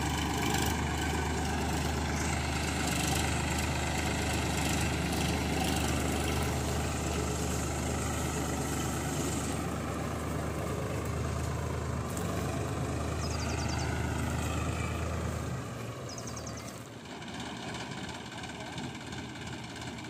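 Tractor-mounted Satnam mini combine harvester working, cutting mustard: a steady diesel drone with a low hum from the tractor engine and the harvester's running gear. About sixteen seconds in the deepest part of the hum drops away and the sound gets somewhat quieter.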